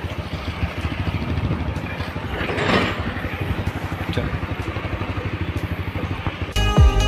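Motorcycle engine running while riding slowly, a steady rapid exhaust pulse, with a brief rush of noise about two and a half seconds in. Electronic background music with heavy bass cuts in near the end.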